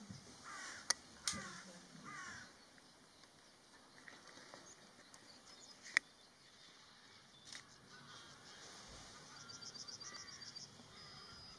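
Wetland birds calling: three short bursts of harsh, raucous calls in the first two seconds or so, then a quieter stretch. Sharp clicks come about a second in and again about six seconds in, the second one the loudest sound here. Near the end there is a quick, high ticking series of about eight ticks a second.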